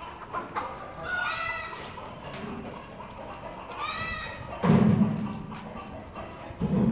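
Sojat goat kids bleating, two short calls about a second and four seconds in, with a loud low thump just after the second call and a smaller one near the end.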